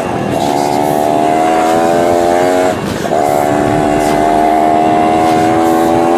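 Off-road vehicle engine held at high revs, a steady droning note that dips briefly twice, at the start and about three seconds in, then picks straight back up.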